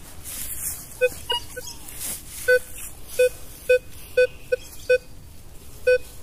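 Minelab Vanquish 540 metal detector beeping as its coil passes over a buried target. The short, identical mid-pitched beeps start about a second in, irregular at first, then come roughly every half second. The target reads about 15 on the detector.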